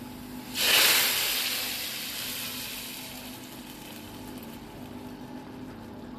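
Hot tempering oil (tarka) with fried onions, garlic, curry leaves and whole spices poured into a pot of cooked dal: a sudden loud sizzle about half a second in, fading away gradually as the oil settles into the liquid.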